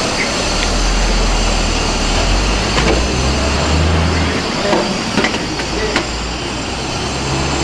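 Steady rumbling noise of a busy street-food stall, with a few sharp clicks about halfway through and faint voices in the background.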